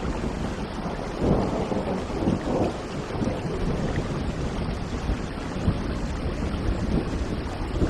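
Steady heavy rain with low rolling thunder, the rumble swelling for a couple of seconds about a second in.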